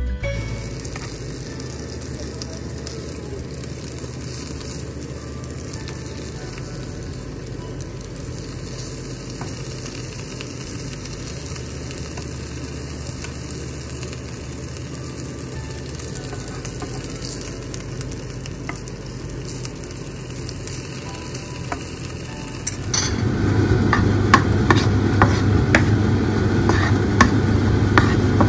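Meat slices sizzling in a non-stick frying pan, with a few faint ticks of a plastic spatula. About 23 s in, the sizzle gets louder, with frequent sharp scrapes and taps of the spatula against the pan as chopped red onion is stirred and fried.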